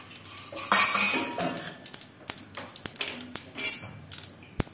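Cumin and mustard seeds spluttering in hot oil in a kadhai: scattered sharp pops and crackles, with two brief louder bursts of hiss, about a second in and after three and a half seconds.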